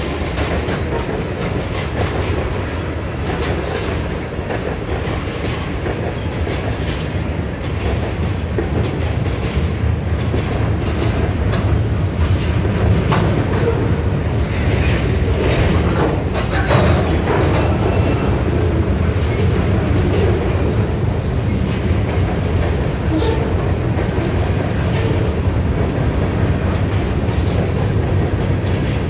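Freight train cars rolling past a grade crossing: a steady rumble of steel wheels on rail, with clickety-clack over the joints and scattered sharp clicks. It grows somewhat louder about ten seconds in.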